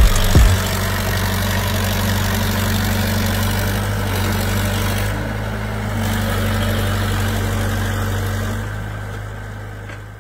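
Kato excavator's diesel engine running steadily as the machine crawls through a flooded paddy, with a couple of sharp knocks in the first half-second. The sound fades out over the last couple of seconds.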